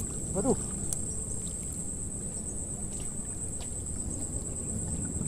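Insects chirring in one steady, high-pitched drone, with a low rumble underneath and a few faint clicks.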